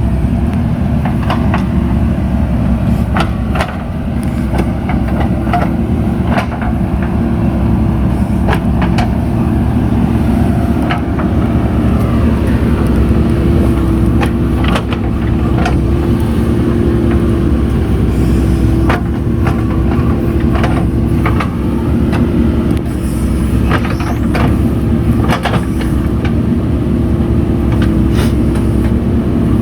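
JCB 3DX backhoe loader's diesel engine running steadily under work, with frequent irregular sharp clanks and knocks.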